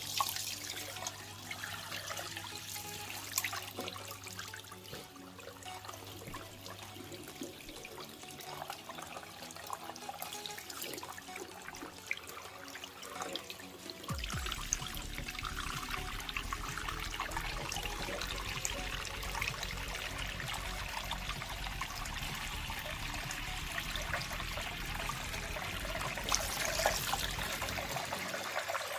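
Tap water running and trickling into a basin. About halfway through it runs harder and fuller. A steady low hum can be heard in the first few seconds.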